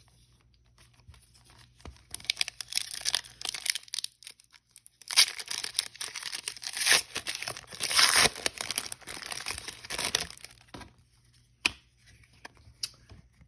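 A trading-card pack wrapper being torn open and crinkled, in two long stretches of rustling, followed by a few sharp clicks near the end.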